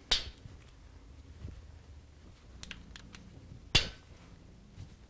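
Two sharp metallic clicks about three and a half seconds apart, with faint ticks between, from a hex key working out the cam plate cap screws.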